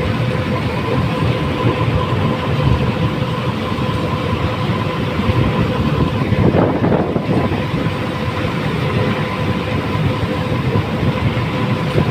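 Bobcat B900 backhoe loader's diesel engine running under work, a heavy rumble with a steady whine over it and a louder surge about halfway through.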